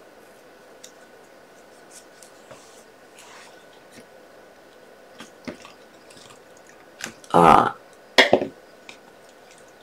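Quiet handling noises from paper-crafting at a table: faint clicks, taps and small sticky rustles as glued pieces and tweezers are handled, with two brief louder noises about seven and eight seconds in.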